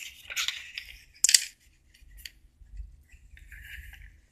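Paper rustling and sliding as a handwritten notebook is handled and moved onto a wooden desk, with one sharp tap about a second in and softer rustling near the end.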